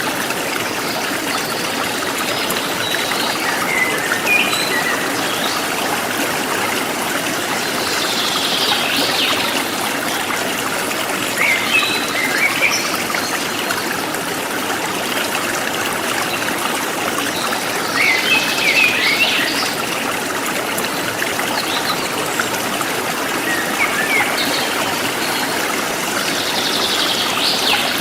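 A forest stream trickling and flowing steadily, with birds chirping over it in short phrases every few seconds.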